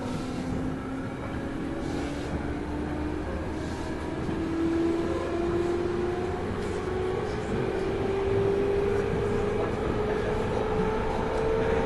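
JR 213 series electric train's traction motors and gearing whining under power inside the motor car, the tone climbing steadily in pitch as the train gains speed, over the running rumble of the wheels. A few faint clicks sound from the running gear.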